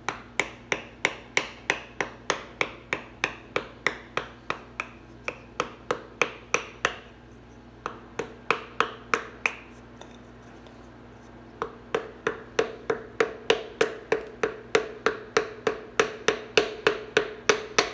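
Quick, even hammer blows, about three a second, on a brass drift held against the crankshaft of a Ford 5.0 V8 block, in two long runs with a pause of a few seconds in the middle. A faint ringing tone sounds under the second run.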